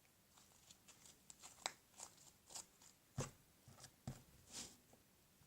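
Faint clicks and squelches of slime being squeezed and stretched by hand: a dozen or so short, irregular sounds, the loudest about three seconds in.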